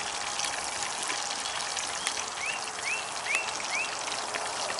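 Breaded catfish chunks sizzling and crackling in hot oil in a cast-iron skillet. A bird gives four short rising notes a little past halfway.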